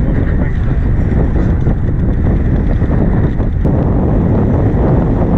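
Steady wind noise buffeting the microphone of a camera on a sailboat under way, with water rushing along the hull.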